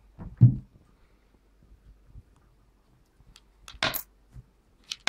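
A dull thump about half a second in, then two sharp clicks near the end: small steel grosz coins being handled on a round magnet, clicking against it and onto the table.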